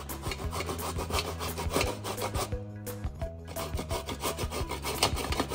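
A knife sawing through a bottle gourd in repeated rasping strokes, with a short pause near the middle. Background music runs underneath.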